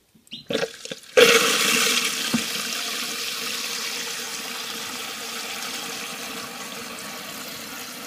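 Toilet tank refilling through a new Korky quiet fill valve just after the water supply is turned on: a few short noises, then about a second in water rushes in with a sudden loud hiss that runs on steadily, slowly growing quieter.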